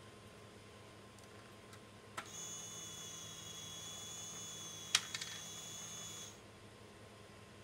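Small electric motor of a fischertechnik conveyor belt running with a steady whine for about four seconds. It starts with a click and cuts off suddenly, with a few sharp clicks, the loudest sounds here, a little past halfway.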